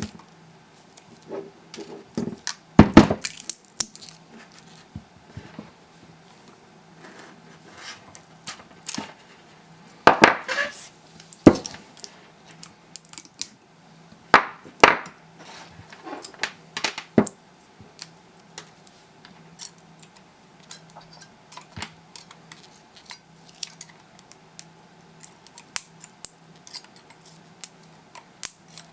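Hand tools and metal clicking, scraping and knocking against plastic as a laptop battery pack is pried apart and its 18650 cells are separated. A few louder knocks come about three, ten and fifteen seconds in. Near the end there is a quicker run of small snips and ticks.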